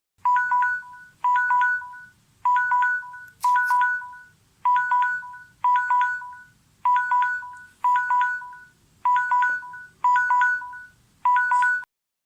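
Samsung phone alarm tone: a short electronic beep pattern on two pitches, repeating about once a second eleven times and then stopping.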